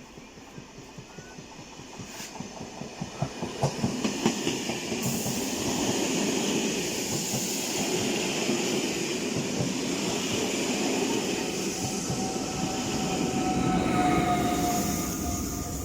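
A train approaching and passing, its wheels clicking over rail joints faster and louder for the first few seconds, then a steady rumble of the train going by. A thin high tone sounds near the end.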